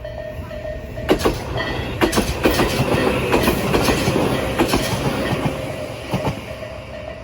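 A Tobu Isesaki Line train passes over a level crossing. Its wheels clatter over the rail joints from about a second in, loudest in the middle and fading near the end. The crossing's electronic warning bell rings at the start and again as the train fades.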